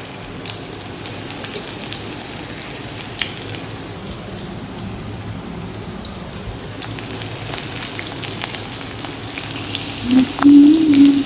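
Green onions frying in hot refined oil: a steady sizzle with scattered crackles. Near the end a short, louder pitched sound comes in over it.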